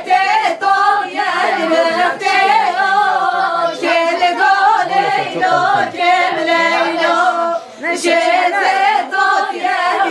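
Group of women singing a Kurdish wedding song unaccompanied, their voices wavering on long held notes.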